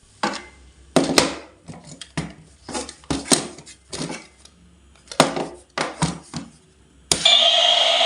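Irregular knocks and clatters of hard objects being handled and set down, about a dozen in seven seconds, some ringing briefly. Music starts suddenly near the end.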